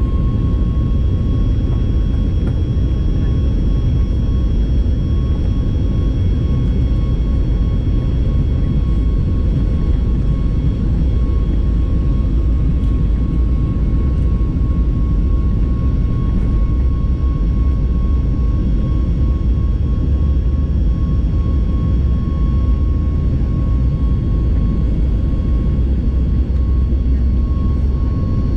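Boeing 737 MAX 8's CFM LEAP-1B28 turbofan engines at takeoff thrust, heard from the cabin over the wing during the takeoff roll. A loud, steady rumble carries several steady high whining tones as the jet accelerates down the runway.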